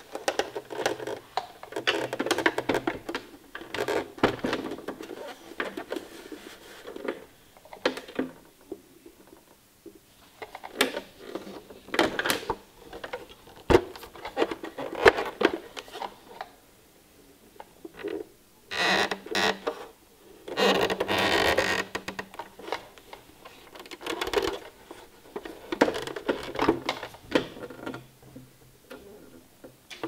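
Handling noise: irregular knocks, rubs and clicks as a plastic sewing machine and its black power-cord plug are moved and turned about by hand, with two longer scuffing bursts a little after the middle.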